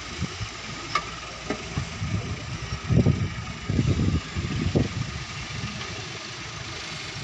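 Excavator engine running steadily, with several heavy low thumps and clunks from about three to five seconds in, the loudest about three seconds in.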